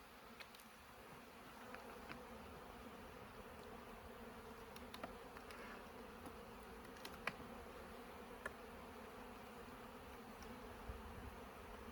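Honeybees humming steadily from an open hive, with a few faint clicks scattered through.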